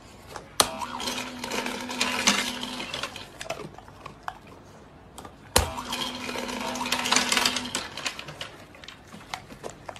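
Pet food dispenser set off by a dog's paw on its push button: a click, then its small motor hums for about two seconds while kibble rattles out into the tray. This happens twice.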